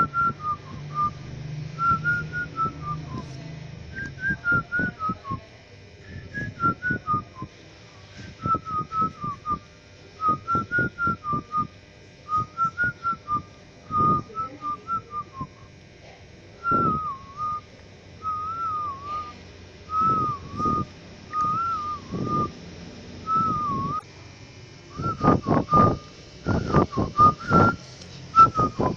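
A person whistling a run of short, quick notes, with a few longer swooping notes in the middle, and a low thump under many of the notes.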